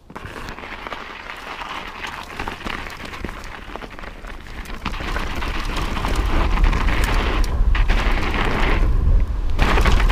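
Norco mountain bike riding fast down a snowy trail: tyres crunching and rattling over snow and rough ground, with wind buffeting the microphone in a low rumble that grows louder from about halfway through.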